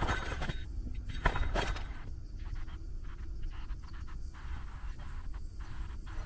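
Outdoor ambience heard while cycling: a low, uneven rumble, with a few sharp clicks in the first two seconds.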